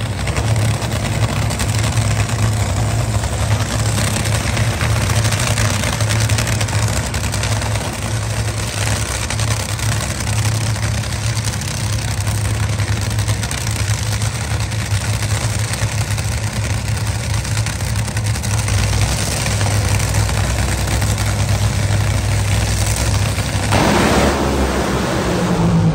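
Drag racing cars' engines running loud and steady at the starting line amid burnout smoke. About two seconds before the end the sound shifts briefly.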